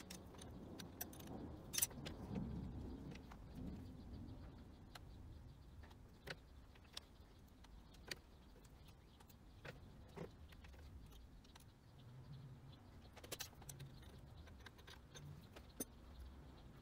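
Faint, scattered metallic clicks and clinks of hands working a lathe's tool post locking lever and fittings, at irregular intervals over a low steady workshop hum.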